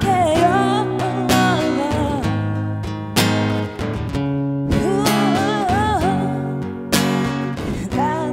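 Live blues music: guitar chords with a wavering melody line carried over them.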